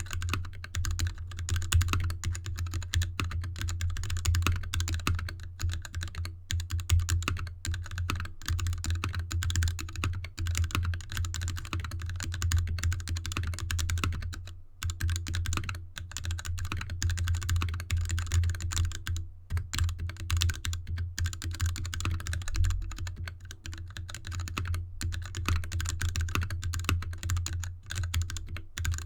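Fast, continuous typing on a mechanical keyboard with lubed Gateron Red linear switches, DSA keycaps and an anodized aluminium case, set on a desk mat: a dense, irregular stream of keystrokes. A steady low hum runs underneath.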